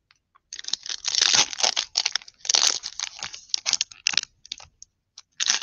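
Foil trading-card pack crinkling and tearing in the hands as it is pulled open, in irregular crackly bursts that stop shortly before the end.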